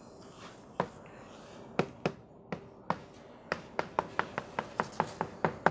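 Chalk writing on a blackboard: sharp taps of the chalk against the board, scattered at first, then a quick run of about five a second over the last two seconds.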